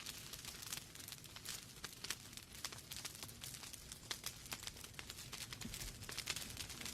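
Wood fire crackling in a fireplace: many small irregular snaps and pops from the burning logs over a low rumble of the flames.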